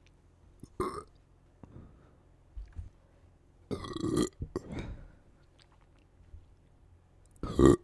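A person belching deep burps: a short one about a second in, a longer, louder one around four seconds with a smaller one just after, and another loud one near the end.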